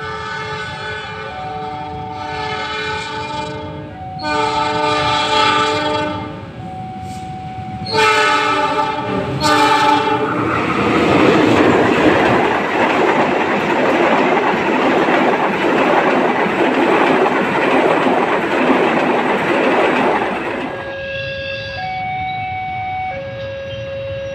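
Passenger train's locomotive horn sounding several long multi-tone blasts over a level crossing's alternating two-tone warning alarm, then the coaches rushing past with wheels clattering on the rails for about ten seconds. After the train has gone, the two-tone crossing alarm carries on alone.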